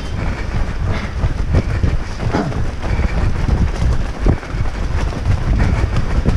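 Wind buffeting the microphone of a body-worn GoPro Hero5 Session while running, a loud low rumble. Footfalls and jolts of the camera knock through it at uneven spacing.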